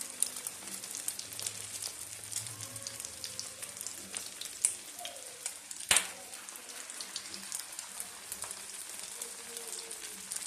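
Egg-dipped potato and chicken cutlets shallow-frying in ghee on a flat tawa, sizzling with a steady crackle of spattering fat. A sharp crack about six seconds in as another cutlet is laid into the hot fat.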